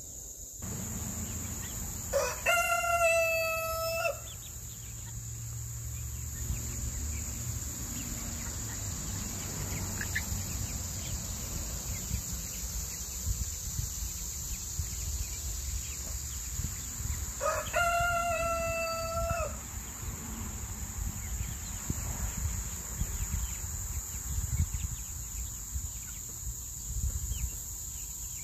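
A rooster crowing twice, about fifteen seconds apart, each crow a single held call of about two seconds.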